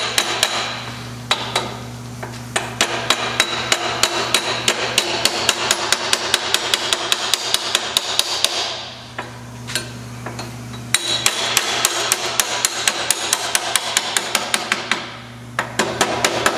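Rapid light taps of a steel ball-peen hammer on the metal hub of a transplanter's dial, driving the dial onto its keyed shaft. The taps come about four a second, with a pause of about two seconds midway and a short one near the end.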